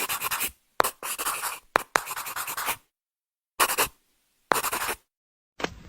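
Scratchy, rasping noise in several bursts of uneven length, each cut off into dead silence, as from an edited sound-effect clip. Near the end a different effect begins: a run of regular sharp hits, about three a second.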